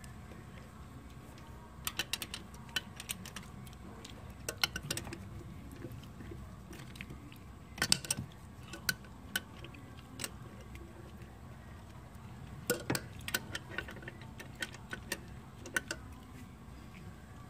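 Scattered sharp metallic clicks and clinks in short clusters, from a hand tool and the new head bolts as the bolts of a Chevy 5.3 LS cylinder head are run down hand-tight.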